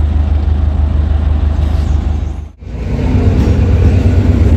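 Diesel-electric multiple unit (DEMU) train at a platform, its engine running with a deep steady rumble. After a short break about two and a half seconds in, it comes back louder with a droning hum over the rumble.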